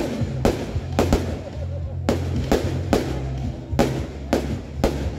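Aerial firework shells bursting in a quick, uneven run of sharp bangs, about two a second, over music with a steady heavy bass.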